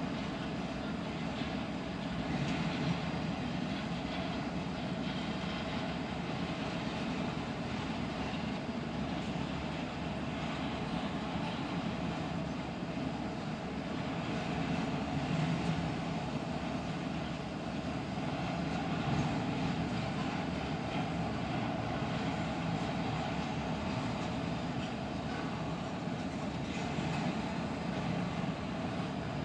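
Double-stack intermodal freight train rolling past: a steady rumble of container cars' wheels on the rails, heard from inside a car.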